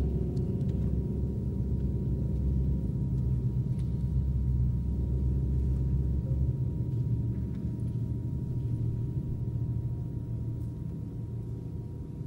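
Contemporary ensemble music: a low, sustained gong-like resonance with a thin steady high tone above it, the deepest part thinning out about six seconds in and the whole fading slightly toward the end.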